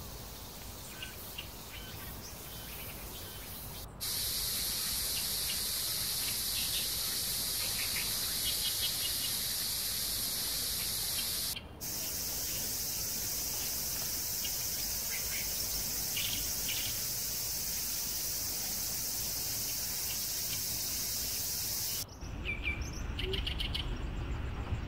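Steady, high-pitched chorus of insects in summer woodland, with a few bird chirps over it. It cuts in suddenly about four seconds in, drops out for a moment near the middle, and near the end gives way to a lower outdoor rushing noise with a few more chirps.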